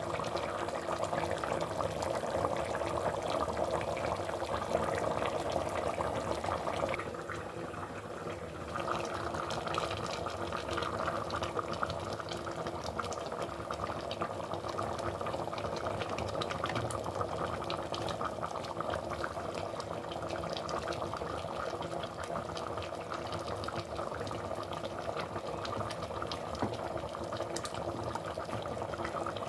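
Water running steadily, as from a kitchen tap, with a brief quieter, thinner spell about seven seconds in.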